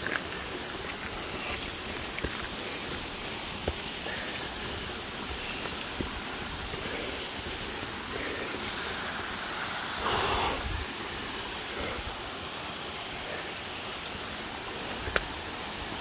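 Steady rush of a cascading mountain creek running beside the trail, with a few sharp ticks of footsteps on rock.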